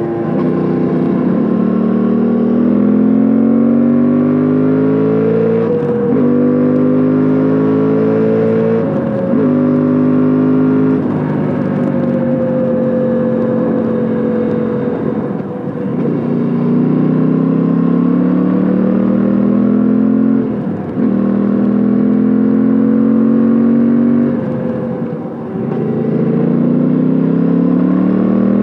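Suzuki V-Strom 800DE's 776 cc parallel-twin engine and exhaust under way, pulling under throttle. Its pitch climbs steadily, then drops sharply, several times over.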